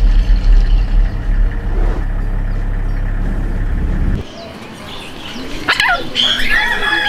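A steady low rumble cuts off about four seconds in. From about six seconds a male eclectus parrot calls: a few sharp squawks, then a held harsh call.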